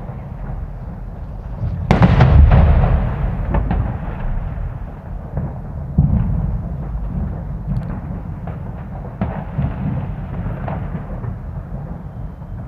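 Distant New Year's fireworks, firecrackers and rockets going off across a city: a steady low rumble of bangs with scattered sharp cracks. A big boom about two seconds in rolls away over the next couple of seconds, and another sharp bang comes about six seconds in.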